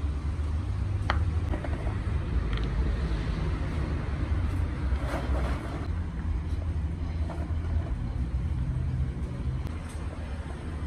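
A steady low rumble of background noise, with a few light clicks of a spoon and food being set on a bamboo serving board.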